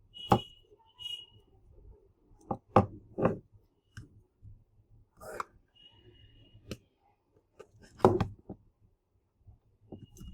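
Irregular clicks and knocks of hand tools and small plastic parts as a power bank's casing and circuit board are taken apart, with a few brief squeaks. The loudest knock comes about 8 seconds in.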